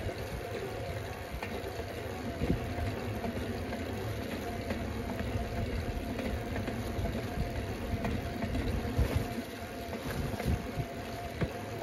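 Bicycle riding along a paved road: steady tyre rumble and wind noise on the microphone, with a faint steady whine and a few small knocks.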